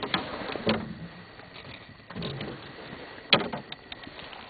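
A few sharp knocks and clatters with some rustling, the loudest knock about three seconds in, from handling a freshly netted smallmouth bass.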